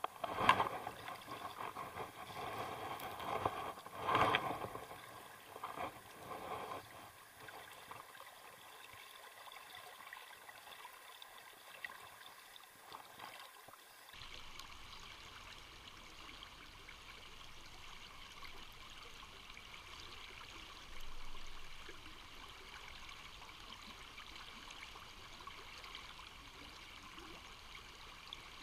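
River current running steadily, with a few sloshes and splashes of someone wading in the first several seconds, the loudest about half a second and about four seconds in. About halfway through, the sound changes abruptly.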